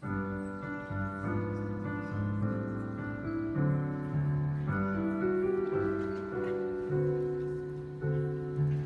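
Piano music begins abruptly and plays slow, sustained chords that change about once a second.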